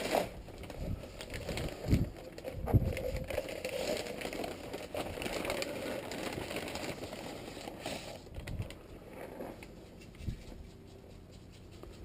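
Rustling, crackling and scraping of material being handled and moved about, with two heavy thumps about two and three seconds in. The noise dies down after about eight seconds.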